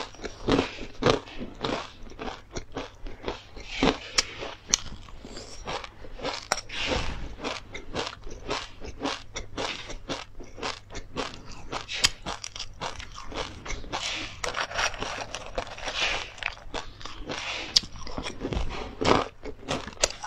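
Close-miked chewing of a crunchy flaxseed and perilla seed mix: a steady run of crisp crunches, several a second.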